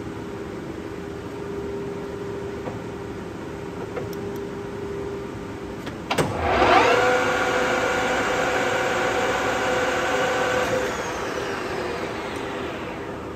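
Colchester Triumph 2000 geared-head centre lathe spindle started: a click about six seconds in, then the chuck spins up with a rising gear whine, runs steadily for about four seconds, and winds down near the end as it coasts to a stop.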